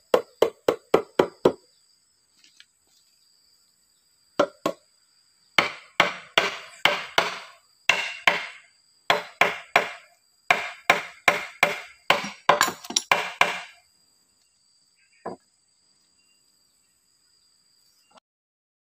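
Hand tool hammering on wood in quick runs of sharp blows, about five a second, with pauses between the runs.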